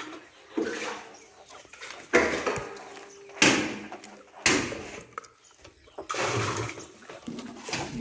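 A bucket on a rope dipping into the shallow water at the bottom of a nearly dry well: about five sudden splashes and knocks, each ringing briefly in the shaft.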